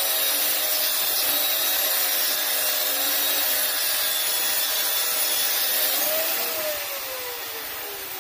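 A power tool running with a steady hiss and a faint hum; about six seconds in the hum's pitch rises briefly and then falls as the noise eases down.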